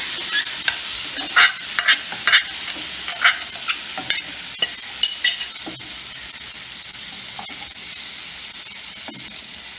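Tomatoes frying in butter and ghee in a hot pan, sizzling with a steady hiss. A spatula scrapes and knocks against the pan in quick strokes through the first half, after which the sizzle carries on alone, slowly fading.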